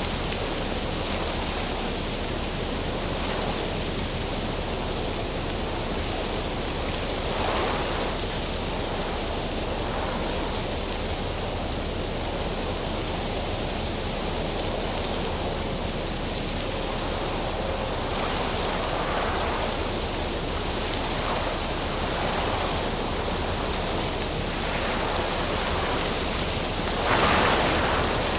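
Tree branches and leaves rustling as one steady, noisy hiss, swelling louder briefly about eight seconds in and again near the end.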